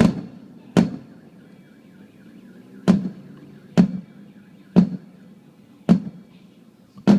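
Aerial fireworks shells exploding: about seven loud, echoing bangs at irregular intervals of one to two seconds. A car alarm wails faintly underneath, set off by the blasts.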